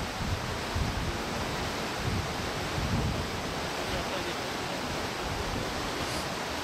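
Shallow mountain stream running over stones, a steady rushing, with wind buffeting the microphone in low gusts.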